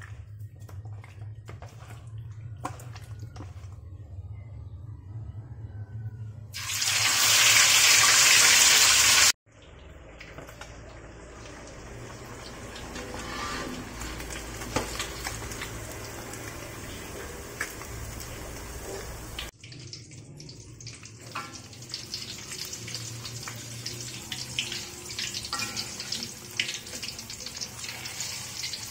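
Catfish and battered fritters deep-frying in hot oil in a steel wok: a steady sizzle with many scattered pops and crackles. Near the start there are soft handling noises, then a loud, even hiss for about three seconds that cuts off abruptly.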